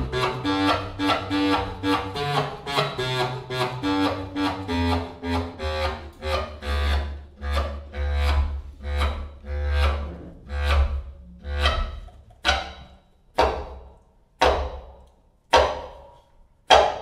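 A quartet of three bass clarinets and a clarinet playing a rhythmic jazz passage of short, tightly pulsed notes over a low bass-clarinet line. About halfway through, the texture thins to single sharp accented notes about a second apart.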